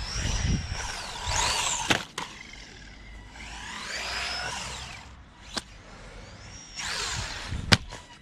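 Brushed electric motor of a WLtoys 124019 RC car whining up and falling away three times as the car speeds up and slows, with a few sharp knocks of the car hitting concrete.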